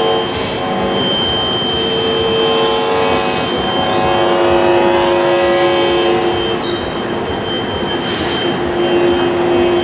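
Electromagnetic fields picked up by a hand-held copper-wire loop antenna and made audible through its receiver: a dense electrical hiss with several steady whining tones and a thin high whistle. About halfway through, the lower tones shift to a new, lower pitch as the antenna moves.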